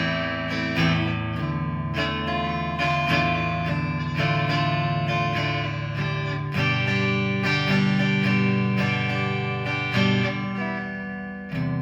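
G&L Legacy Tribute electric guitar on its neck single-coil pickup, played clean through a Line 6 amp: chords strummed and picked in turn, each ringing out, with a new chord every second or two. A faint steady hum sits beneath, typical of single-coil pickups.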